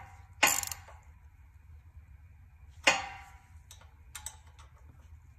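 Sharp metallic clicks of a 4 mm socket and hand driver on the screws of a new carburetor as they are snugged down: two loud clicks about half a second and three seconds in, then a few lighter ticks.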